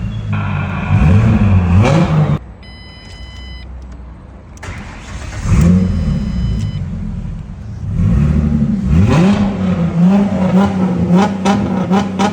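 2006 Ford Mustang engine running and being revved, its pitch rising and falling. About two seconds in it drops away suddenly, a short electronic chime sounds, and the engine is heard running and revving again from about halfway through. The no-crank fault is now cleared after the relays and fuses were replaced.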